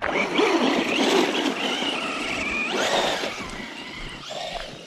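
Traxxas Rustler 4x4 VXL's brushless motor whining at full throttle, wheels spinning, starting suddenly. The pitch jumps sharply about three seconds in and again near the end. This is the hard wheel spin used to flip the overturned truck back onto its wheels.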